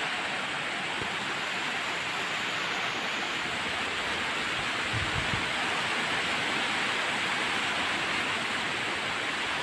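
Steady rain, an even hiss with no change in level, with one faint low knock about five seconds in.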